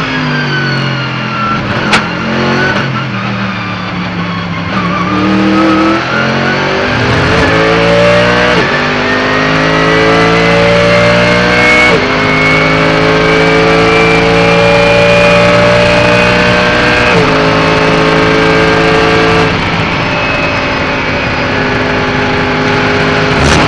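Onboard sound of a Mercedes-AMG GT3's naturally aspirated V8 race engine. The engine slows for a corner, its pitch falling over the first few seconds. It then accelerates hard, and four upshifts drop the pitch suddenly before the revs climb again and hold high on a long straight. A single sharp click comes about two seconds in.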